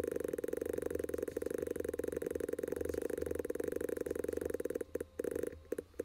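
Fast-forwarded mouse clicking from cubes being placed in a screencast, blurred into a rapid, even buzzing pulse. It stops about five seconds in, leaving a few separate clicks.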